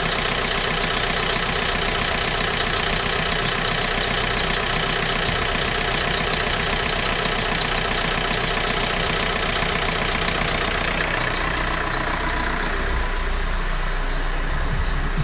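Volkswagen Golf IV's 1.9 TDI (AJM) diesel engine idling steadily, with a high, rapidly repeating squeak coming from the engine. The squeak grows weaker in the last few seconds.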